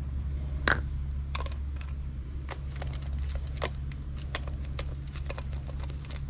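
Scattered small metallic clicks and taps from a distributor and its cap hardware being handled and removed, the sharpest about two-thirds of a second in, over a steady low hum.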